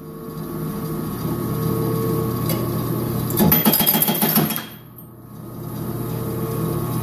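Sweed 450 DDX scrap chopper running with a steady motor hum, broken in the middle by about a second of rapid clattering as brazing rod is chopped. The sound dips briefly just after, and the hum then comes back.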